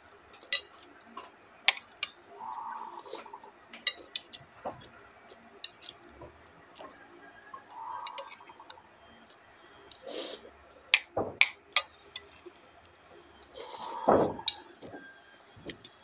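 Close-up eating sounds: a metal spoon clinking against a bowl and mouth clicks from chewing. They come as many short, sharp clicks at no regular rhythm, with a couple of longer, louder sips around ten and fourteen seconds in.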